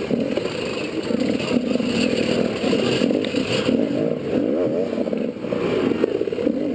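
GasGas enduro motorcycle engine revving up and down as the rider works the throttle to pick through a section of large rocks.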